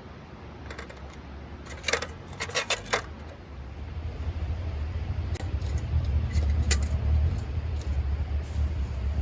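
Light metal clinking and jingling in a quick cluster, then a few single clinks, over a steady low rumble that grows louder in the second half.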